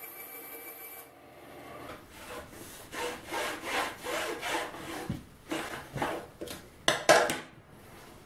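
Bandsaw motor running steadily for about the first second. Then comes a run of wooden scraping and rubbing strokes, roughly two a second, the last two sharper and loudest, from a thin wooden strip rubbing against a surface.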